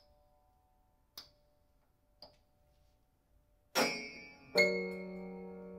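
Prepared grand piano: three dry, muted clicks about a second apart, then two loud struck attacks in quick succession near the end, the second ringing on with a sustained chord that slowly fades.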